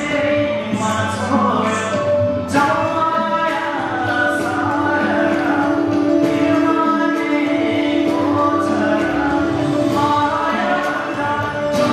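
A man singing a held, sweeping melody into a handheld microphone over backing music with percussion, amplified through stage speakers.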